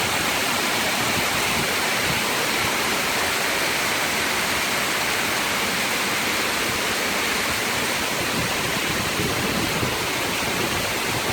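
Heavy storm rain pouring down in strong wind, a steady, even rush of noise that does not let up.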